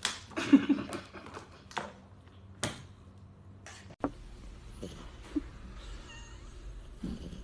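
A cat meowing in a drawn-out, complaining way in the first second, followed by a few sharp knocks.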